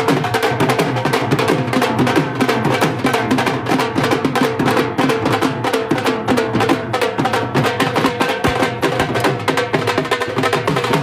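Loud music with a fast, busy drum beat over a steady melody line.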